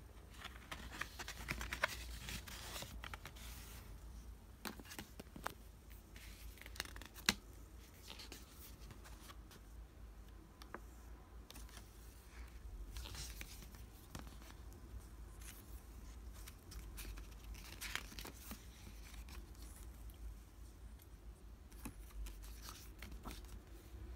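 A CD's paper lyric booklet being handled and its pages turned: intermittent paper rustles and light clicks over a steady low hum.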